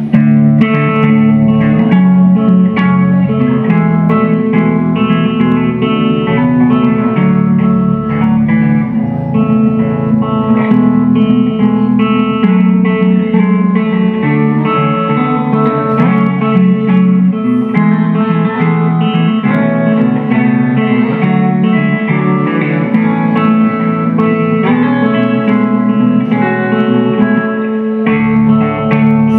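Live amplified guitar music, a dense and continuous stream of ringing, rapidly repeated notes played loudly. It starts abruptly.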